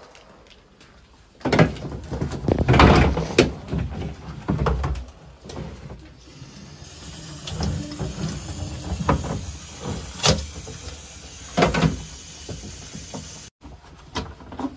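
A plastic developing tray knocking and clattering as it is set down in a sink, then a hose sprayer hissing as water rinses the ferric chloride off the freshly etched copper plate. The spray cuts off suddenly near the end.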